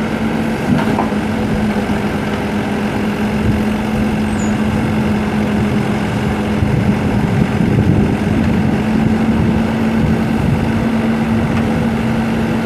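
Komatsu WB140-2N backhoe's Yanmar four-cylinder turbo diesel engine running at a steady speed, with a slightly heavier low rumble for a couple of seconds past the middle.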